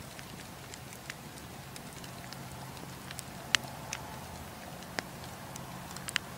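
Wood campfire crackling: irregular sharp pops and snaps from the burning logs, the loudest about halfway through, another a second later and a quick pair near the end, over a steady hiss of the flames and a low hum.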